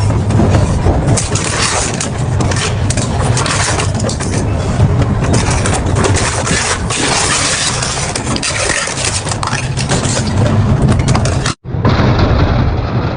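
Double-shaft industrial shredder grinding and tearing through material, a steady loud crunching thick with sharp cracks and snaps. It cuts off abruptly near the end, and then similar shredding resumes.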